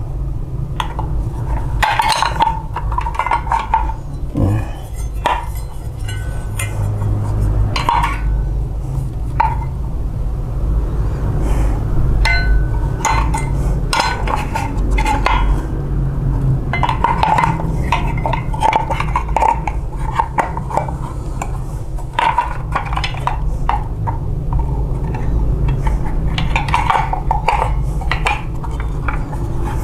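Small metal and plastic photocopier parts clinking and clicking as they are handled and fitted, in irregular light knocks over a steady low hum.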